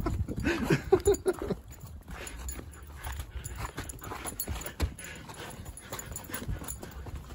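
Border Collie–Kelpie puppy giving several short, high-pitched whining yips in the first second and a half of an excited play chase, followed by a run of scuffs and small knocks from feet and paws on dirt.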